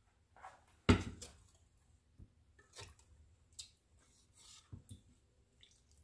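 Scattered knocks and clinks of a utensil against a bowl while crumbled cornbread dressing is mixed with broth. There is one sharp knock about a second in, followed by several fainter taps at uneven intervals.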